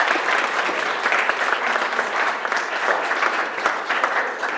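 A roomful of people applauding, the clapping slowly dying down.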